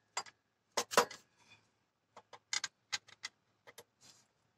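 Sharp metal clicks and taps from a tool worked against an automotive AC compressor clutch hub while its lock ring is seated: a few clicks in the first second, then a quick uneven run of about half a dozen between two and three and a half seconds in.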